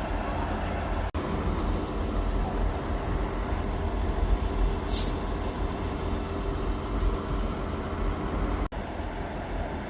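Northern Class 158 diesel multiple unit's engine idling with a steady low rumble, and a short burst of air hiss about five seconds in.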